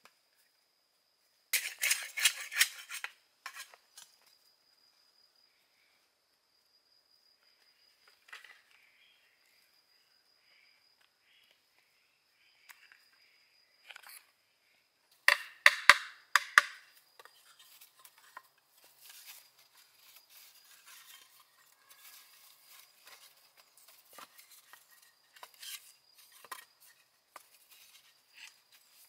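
Two bursts of sharp clattering knocks from hard objects striking each other, one about a second and a half in and one around fifteen seconds in, then fainter scattered clicks. A faint steady high tone runs underneath.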